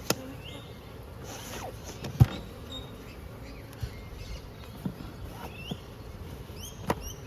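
Irregular knocks and clicks of wooden beehive boxes and gear being handled as the hive is closed up, with one louder thump about two seconds in, over honey bees buzzing around the hive. A few short bird chirps near the end.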